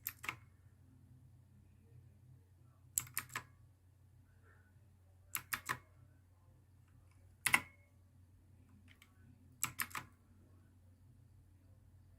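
Clicky blue switches of a Black Shark Sixgill K2 mechanical keyboard being pressed in short groups of two or three sharp clicks, roughly every two seconds, over a faint low hum.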